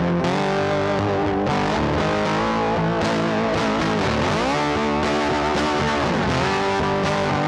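Background music: a guitar-led track with distorted electric guitar, its notes bending up and down in pitch around the middle.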